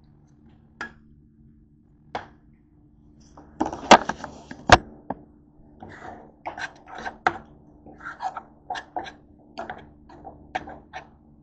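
A utensil stirring thick refried beans in a nonstick saucepan, knocking and scraping against the pot, with two loud knocks about four seconds in and then a run of knocks at about two a second, over a faint steady hum.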